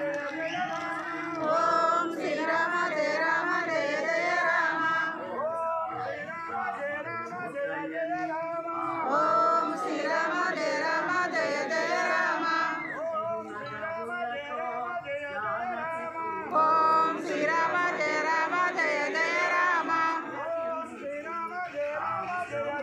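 Men's and women's voices singing a Rama bhajan together in chorus, in continuous sung phrases.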